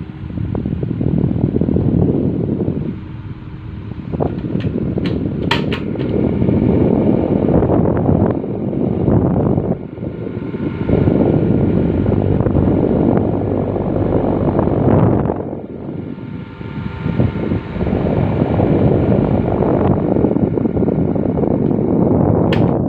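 Khind TF-163 16-inch electric table fan running, its airflow rushing in waves, with a faint steady motor whine. A few sharp clicks about five seconds in and again near the end.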